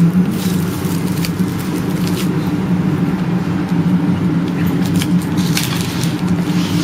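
A steady low hum, with a few brief rustles and clicks of card packaging being handled.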